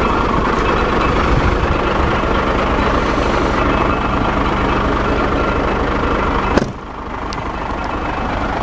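Nissan Diesel truck's diesel engine idling steadily with a low, even hum over it. About two-thirds of the way through, a click, the hum stops and the overall sound drops, the engine still running.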